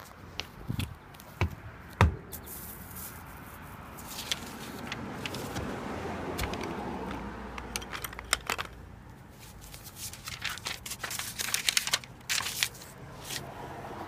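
Handling noise from a phone camera being moved around: fingers rubbing and knocking on the microphone, with scattered sharp clicks and a quick run of taps near the end.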